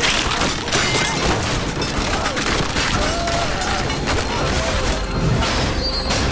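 Action-scene sound mix of repeated heavy crashes and impacts, a superhuman body smashing through a train carriage and its passengers, over a dramatic music score.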